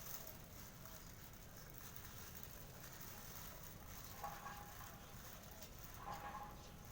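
Birds feeding: faint light tapping and pattering, with two short calls about four and six seconds in.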